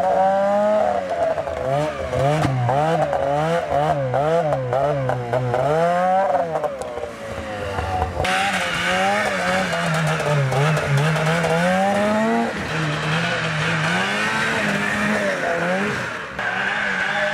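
Arctic Cat 370 snowmobile's two-stroke engine revving up and down over and over as it is ridden hard through snow, its pitch rising and falling about once a second. The sound changes abruptly about eight seconds in and again near the end.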